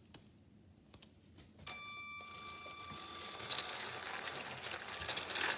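LEGO toy train pulling away on plastic track. A few light clicks, then a sudden steady high whine from its electric motor about a second and a half in, followed by a rattling noise of gears and wheels that grows louder as the train moves.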